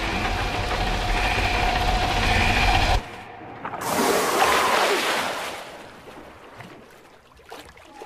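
Low steady rumble of a ship's engine and water, cutting off abruptly about three seconds in; then a surfacing whale's blow, a loud rushing exhalation with spray that swells and fades over about a second and a half, followed by faint sea noise.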